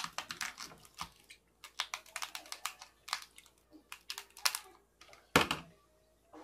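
Cooked crab shells cracking and being picked apart by hand: fast runs of sharp clicks and crackles, with one louder knock about five seconds in.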